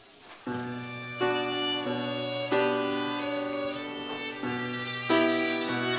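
Chamber string ensemble of violins and cellos playing a slow instrumental introduction. It comes in about half a second in, with bowed sustained chords that change about once a second.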